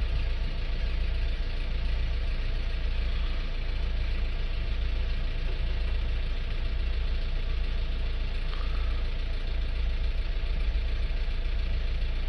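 Renault Trafic van's diesel engine idling steadily, heard from inside the cab.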